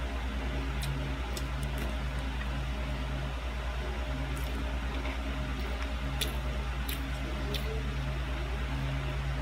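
A plastic knife and fork cutting soft pancakes in a paperboard tray, with a few faint clicks and scrapes, over a steady low hum.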